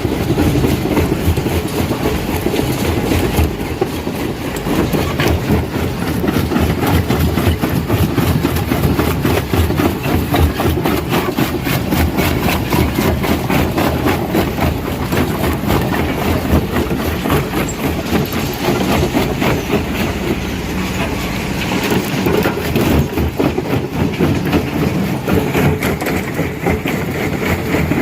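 Rock crusher breaking stone: a steady, heavy rumble of the machine with continuous dense clattering and knocking of rock being crushed.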